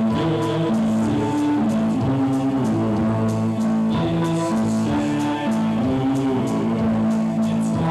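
Live band music led by electric guitar, with long held notes that change roughly every second and light ticking above them.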